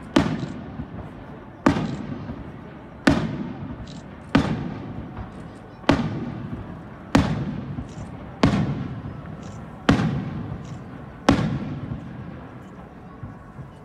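Aerial firework shells bursting overhead: nine sharp booms, about one every second and a half, each trailing off in a long echoing rumble. The last comes about eleven seconds in.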